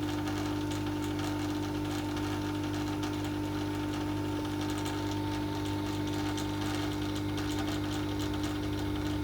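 Hot-air rework station's air pump running with a steady buzzing hum, blowing hot air to shrink heat-shrink sleeving.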